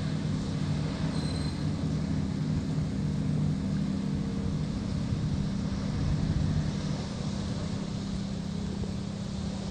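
A steady, low engine hum running at a constant speed, with an even hiss over it.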